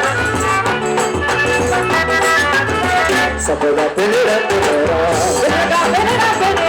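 Loud Brazilian folk music: a forró-style band with a steady bass beat, a melody line and a shaker.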